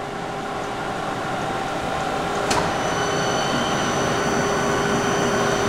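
SMTW H163 plain cylindrical grinder running, its hydraulic system and motors making a steady hum that grows slowly louder. About two and a half seconds in there is a sharp click, after which a few high steady whines join the hum.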